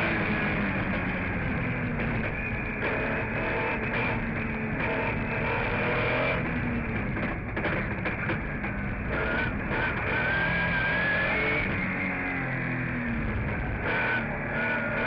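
Rallycross car's engine heard from inside the cabin, running hard through the lap, with guitar music laid over it.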